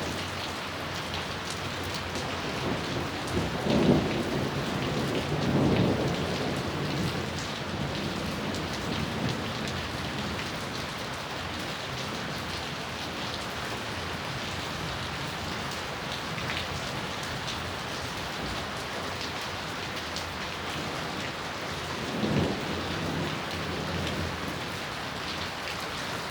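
Steady rain falling, with thunder rumbling twice: a rolling peal about four seconds in that lasts a few seconds, and a shorter one near the end.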